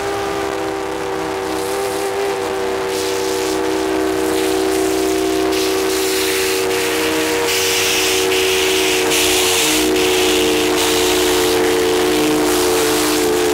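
Steam locomotive whistle held in one long, steady chord. Steam exhaust chuffs hiss along with it roughly once a second and grow louder from about the middle on.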